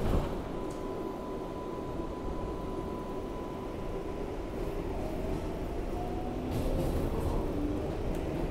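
R188 subway train running with a steady rumble and a steady high tone; about five seconds in, its motor whine starts rising in pitch as the train picks up speed.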